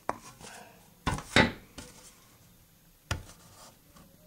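Fingers picking and scraping at frozen silicone and nitrile gasket material bonded to a test plate. There are a few sharp clicks and scrapes, the loudest about a second and a half in.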